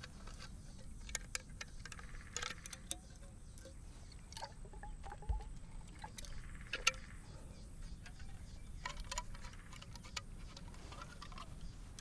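Metal hip flask being handled: scattered small metallic clicks and taps of its screw cap and body, a few sharper ones about a second in and near seven seconds, over faint outdoor hum.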